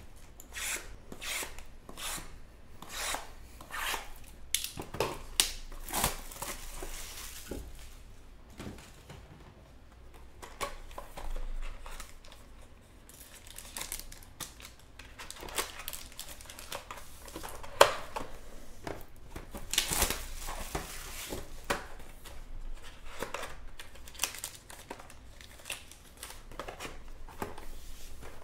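Plastic shrink wrap being slit with a utility knife and torn off cardboard trading-card boxes, in irregular crinkling and tearing strokes, with the cardboard boxes being opened and handled.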